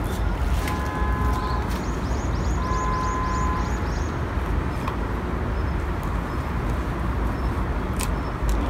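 Dogs gnawing veal shin bones, with a few sharp cracks of bone on teeth, over a steady low rumble of distant traffic. A bird calls in short whistled notes and then a quick run of high falling chirps about two to four seconds in.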